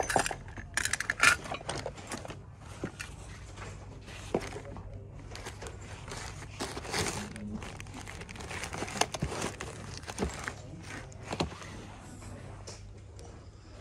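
Plastic bags and sleeves crinkling as a hand sorts through them, with scattered clicks and knocks of small items being shifted about.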